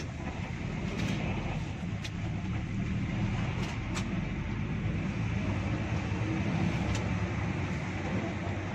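Diesel engine of a 2000 Hino RG1JSKA bus running steadily while the bus drives, heard from the cab, with a few short clicks or rattles.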